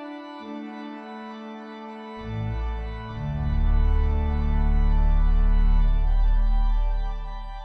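Organ playing sustained chords as a postlude, with deep bass notes coming in about two seconds in and the music swelling, then easing off near the end.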